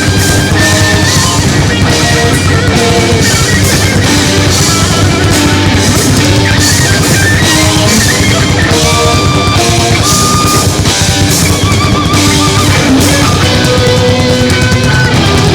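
Heavy metal band playing live: distorted electric guitars, bass and drum kit, with a lead guitar melody of short held notes on top.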